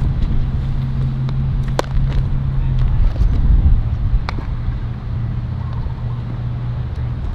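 Two sharp pops about two and a half seconds apart, typical of a thrown baseball smacking into a leather glove, over a steady low motor-like drone with a held low hum that drops out for a while midway.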